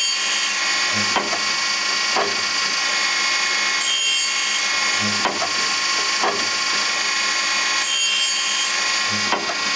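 Loroch band saw sharpening machine running through its repeating grinding cycle. Under a steady mechanical whir there are sharp knocks every second or two, and a brief high grinding hiss comes about every four seconds.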